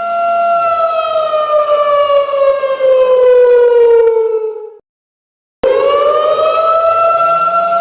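Siren sounding a steady tone, then sliding slowly down in pitch for about four seconds before cutting out abruptly. After nearly a second of silence it comes back and rises to the same steady tone.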